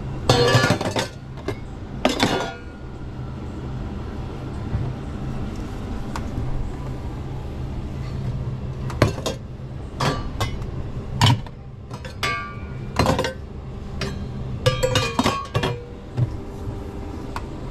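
Crockery, glass and cutlery clinking and knocking now and then as dishes are handled behind a café counter, over a steady low hum.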